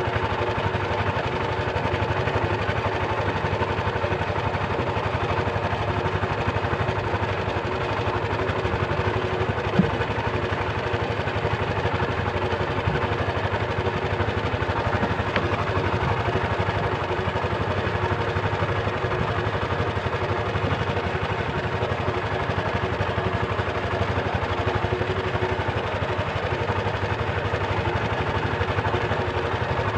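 Small fishing boat's engine running steadily while trolling, an even drone with a steady hum. There is one brief knock about ten seconds in.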